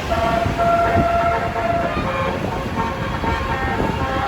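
Indonesian tour bus's basuri (telolet) multi-tone air horn playing a tune of held notes that change pitch every second or so, over engine and street noise.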